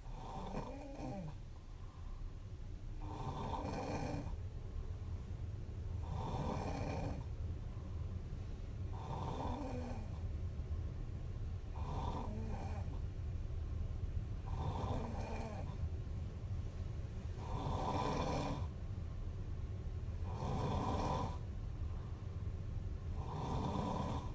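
A young woman snoring in her sleep, steady and rhythmic, about one snore every three seconds.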